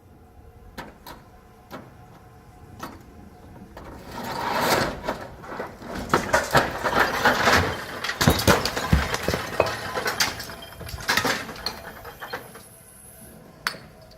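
Chimney masonry being knocked down: a few scattered knocks, then about four seconds in a long crash of falling brick and rubble with many clattering impacts, dying away near the end.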